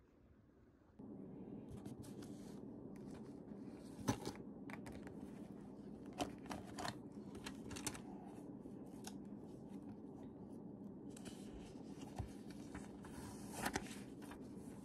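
Paper handling at a desk: a small memo pad being flipped and handled, giving several crisp paper rustles and taps. A steady low room hum comes in about a second in.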